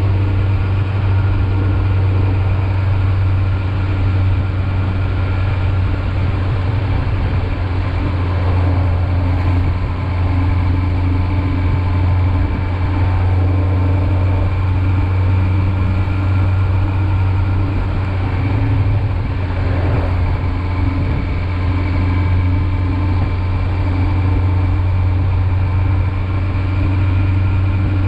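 Engine and exhaust of a 2019 Kawasaki Z900, the 35 kW restricted version with an inline-four engine, running at steady revs while the bike is ridden: an even, low drone.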